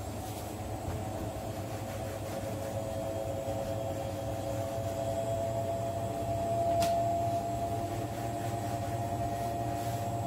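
Steady hum of a running machine, such as a kitchen appliance motor, with held tones and one faint click about seven seconds in.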